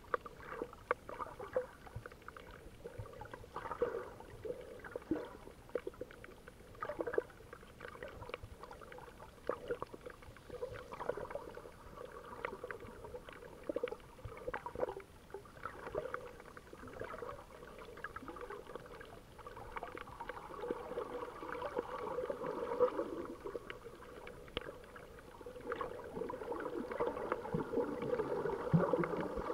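Muffled underwater noise picked up by a submerged camera: water gurgling and sloshing with irregular small clicks and pops, growing louder near the end.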